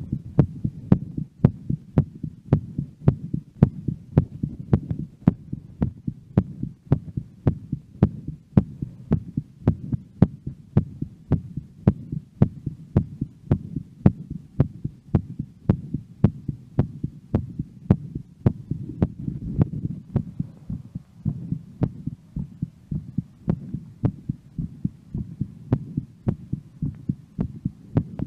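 A woman's heartbeat after exercise, picked up close to the chest. It is a steady, even run of beats, a little faster than one a second, over a constant low hum.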